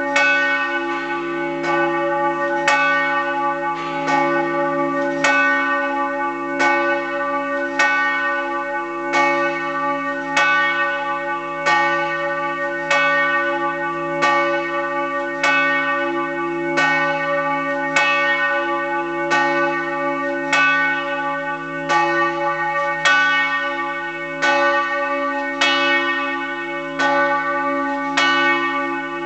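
Peter, a church bell tuned to C♯ (cis1) with a 143 cm rim, cast in 1930 by the Fischer brothers in Trnava, swinging full and struck by its clapper about every second and a quarter for funeral tolling. Each stroke rings on into the next over a steady low hum.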